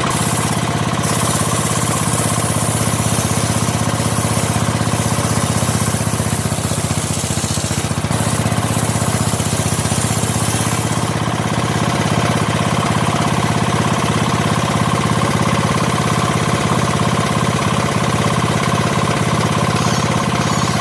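Engine-driven sawmill saw running steadily with a fast, even pulsing drone, and a high hiss that comes in twice, about a second in and again about eight seconds in.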